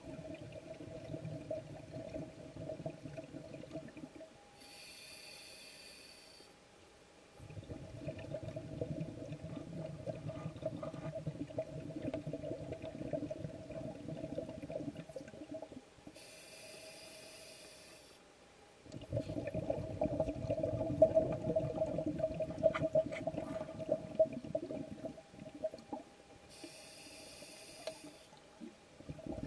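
Scuba breathing heard underwater, three breaths: a short hiss of inhaling through the regulator, then a long rumbling stream of exhaled bubbles.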